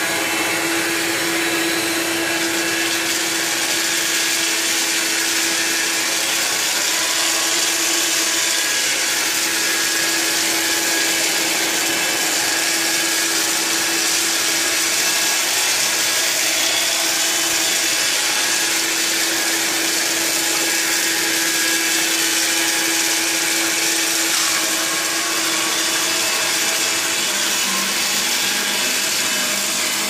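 Hoover LiNX Signature 18-volt cordless stick vacuum running steadily: a hum under a loud, high hiss of rushing air. The hum changes near the end, a lower tone taking its place as the vacuum moves from tile onto carpet.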